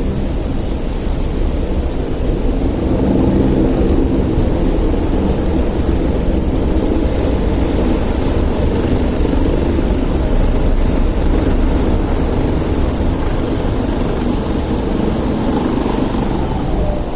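A Star Ferry's diesel engine running steadily on board as the ferry manoeuvres alongside the pier to berth, a continuous low rumble.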